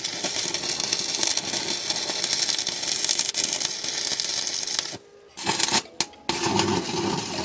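Continuous harsh rasping, scraping noise of hand metalwork on steel, stopping briefly about five seconds in. Music comes in near the end.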